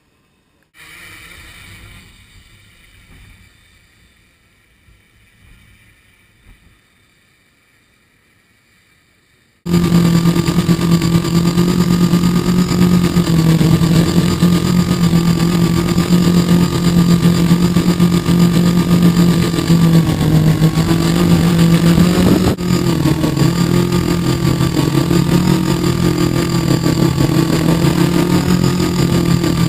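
Quadcopter's electric motors and propellers, heard up close from a camera mounted on its frame: a loud, steady buzzing drone whose pitch wavers slightly as the motor speeds adjust. It cuts in suddenly about ten seconds in, after faint sound with thin high tones.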